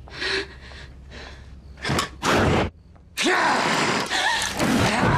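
A woman's sharp gasps and strained breathing: two loud breathy gasps about two seconds in, a short silence, then a longer run of ragged gasping with short strained cries.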